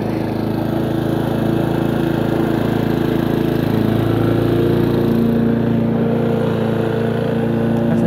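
Walk-behind petrol rotary lawn mower running steadily while cutting grass.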